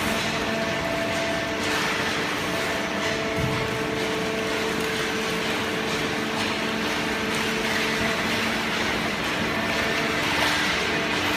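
Cardboard baler and its feed conveyor running: a steady machine hum with several constant tones over an even rushing noise.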